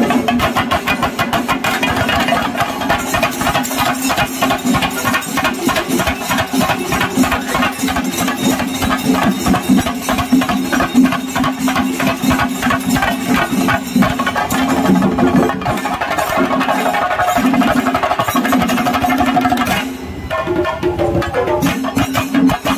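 Loud live percussion music: rapid, dense drumming over a steady low droning tone, with a brief drop in loudness near the end before it picks up again.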